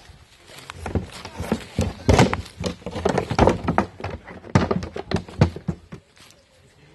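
Roe deer shut in a plywood transport crate, its hooves knocking and scrabbling against the wooden walls in a quick, irregular run of thumps that stops near the end.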